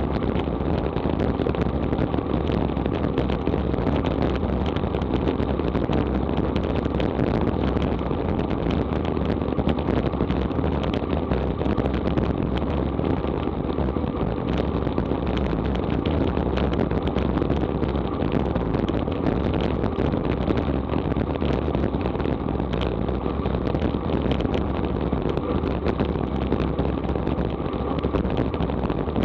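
Steady rush and rumble of wind on a bike-mounted action camera's microphone, with road-tyre noise, from a road bike riding at about 27 mph.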